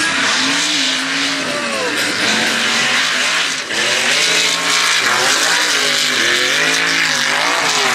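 Lifted mud truck's engine revving hard through a mud pit, its pitch climbing and dropping over and over as the throttle works, over a loud rushing hiss of tyres churning and throwing mud.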